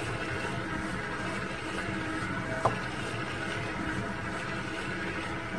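KitchenAid Artisan stand mixer running steadily, its flat beater mixing cake batter in a stainless steel bowl as eggs go in. A single sharp clink sounds about halfway through.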